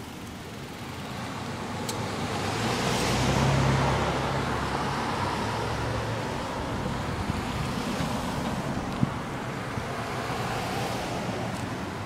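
A car passing on the street, its engine and tyre noise swelling to its loudest about four seconds in and then fading, over steady wind and rolling noise from riding along the sidewalk. A couple of sharp clicks come later.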